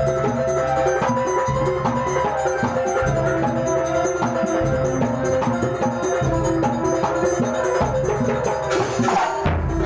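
Kuntulan music: drums and percussion beating a steady rhythm under a pitched melody, with a short crash about nine seconds in.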